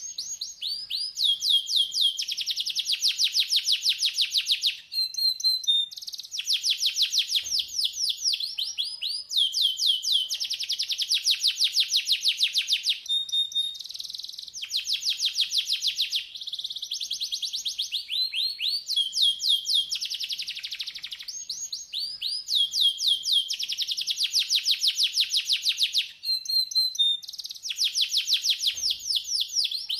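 Canary singing a continuous song of very fast trills and rolls, phrase after phrase with short breaks between them.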